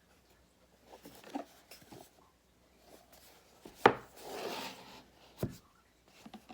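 Handling a product box: scattered taps and knocks, a sharp knock about four seconds in followed by a brief rubbing, and another knock near the end.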